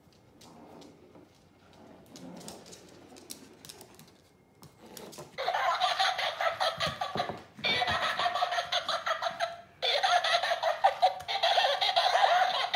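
A battery-operated plush tabby cat toy rolling about on the floor and playing recorded laughter through its small speaker, in three loud stretches with short breaks, starting about five seconds in. Before that there are only faint rustles and light taps.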